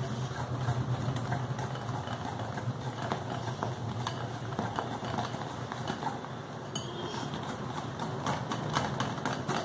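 Wire whisk beating dhokla batter fast in a glass bowl, the wires clicking rapidly against the glass, over a steady low hum. The batter has just had Eno fruit salt stirred in and is being whipped quickly while it aerates.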